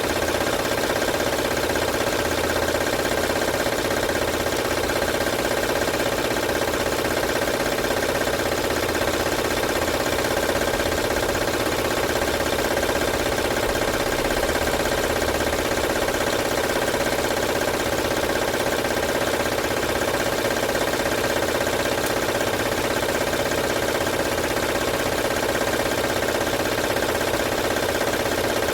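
2006 Honda Odyssey's V6 engine idling with a steady, loud rattle. The rattle comes from a slack timing belt flapping on its run because it was fitted wrong.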